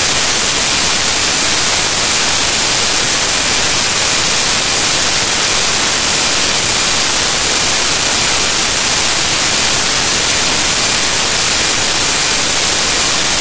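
Loud, steady static hiss with no trace of music or voices, heaviest in the highs: corrupted digital data playing back as noise. It cuts off suddenly at the end.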